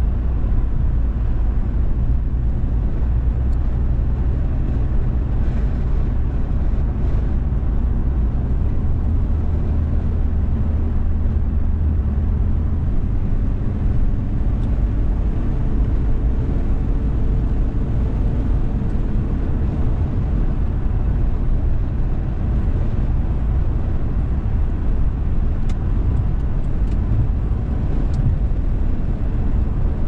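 Steady low rumble of a car driving along a highway, with the deepest part of the rumble easing a little about halfway through.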